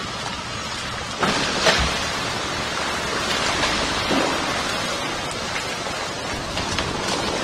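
Belanger InstaKleen automatic car wash running: a steady hiss of water spray and splashing, which jumps to a louder rush about a second in.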